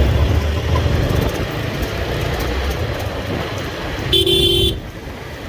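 Motorcycle running and picking up speed in city traffic, a low rumble that eases after about three seconds. A short vehicle horn honk sounds about four seconds in.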